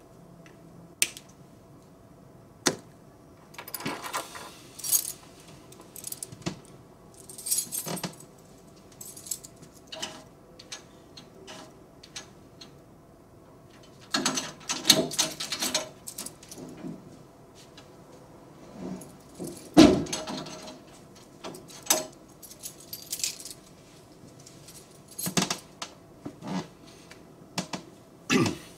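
A bunch of keys jangling and clicking, among scattered small clicks and rustling, with one loud heavy thump a little before the twenty-second mark.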